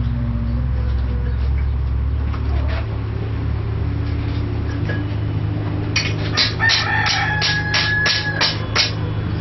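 A steady low hum, then from about six seconds in a hammer striking steel on an anvil in an even rhythm of about three blows a second. Midway through the hammering a rooster crows.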